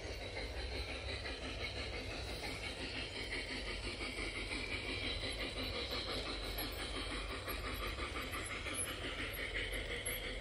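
LGB G-scale model trains running on garden track, with a steady rolling sound of wheels on the rails and motor hum.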